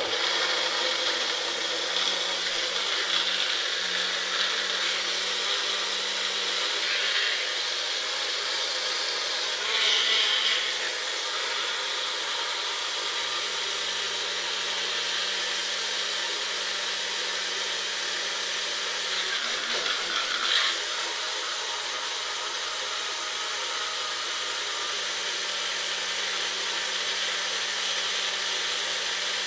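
Ninja personal blender motor running under load, blending a thick spinach and cucumber smoothie: a steady whir with brief louder surges about ten and twenty seconds in.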